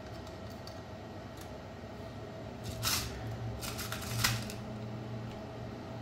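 Small metal hardware being handled: a few light clicks, a short scrape about three seconds in, then a quick run of sharp clicks with one louder click a little after four seconds, as nuts and copper busbars are fitted onto the battery cell terminals. A steady low hum runs underneath.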